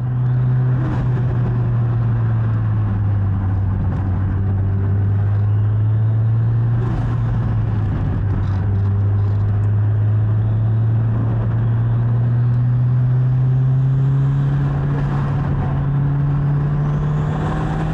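Turbocharged car engine heard from inside the cabin, a steady drone over road noise while driving. Its pitch climbs slowly over the last few seconds as the car picks up speed.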